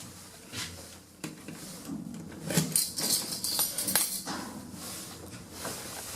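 Lift in operation: a run of sharp clicks, knocks and metallic rattles over a low hum, busiest in the middle.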